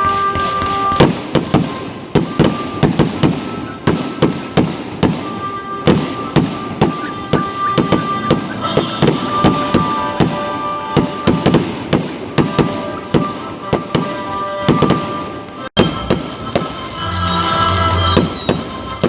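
Fireworks bursting in quick succession, sharp bangs about two or three a second, with music playing alongside. The bangs thin out in the last few seconds, leaving mostly the music.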